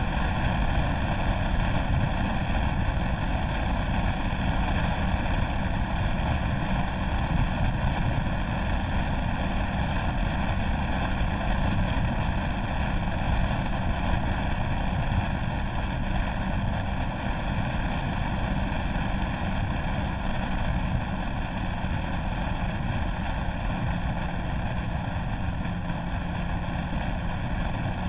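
Motorcycle riding at speed: wind rush over the camera microphone covers a steady engine drone, whose note rises slightly near the end.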